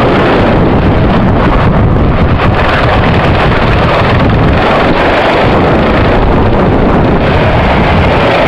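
Go-kart running at speed, heard from its onboard camera as loud, steady wind buffeting on the microphone over the kart's engine.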